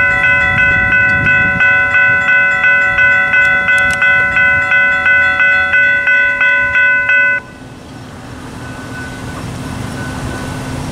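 Railroad grade-crossing warning bell ringing in quick, even strikes, about two and a half a second, while the crossing gates rise after a train has cleared. It cuts off suddenly about two-thirds of the way in, as the gate arms near upright. A low steady hum then slowly grows.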